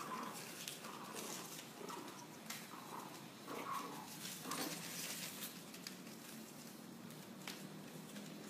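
Pomeranian puppies at play, giving about six short, faint yips in the first half, over scattered scratching and rustling of paws on newspaper.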